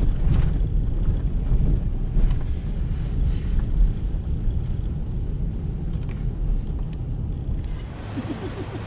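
Strong wind gusting against the microphone, a heavy buffeting rumble that eases slowly, at the start of a blizzard.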